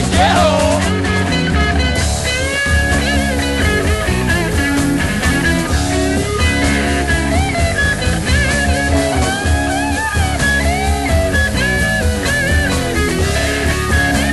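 Rock music with electric guitar lead lines bending in pitch over bass and drums.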